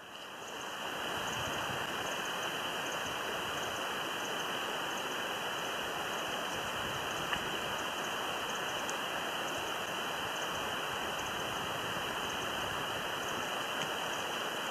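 Steady, even outdoor rushing noise with no distinct events, like water flowing; it fades in over the first second.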